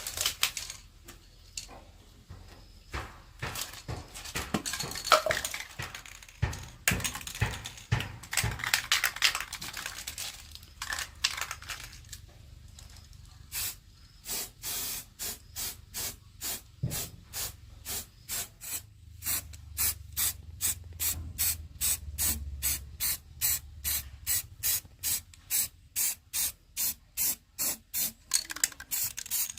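Hand-worked scrubbing or rasping over a surface: irregular scrapes and clicks at first, then from about halfway steady back-and-forth strokes, about one and a half to two a second.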